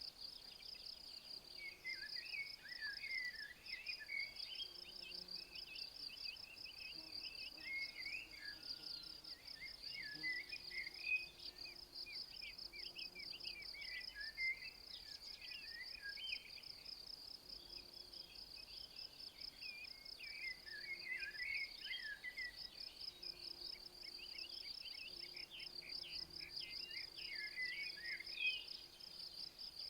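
Insects chirping in a steady, fast pulse, high-pitched and unbroken, with birds singing in short, quick phrases now and then.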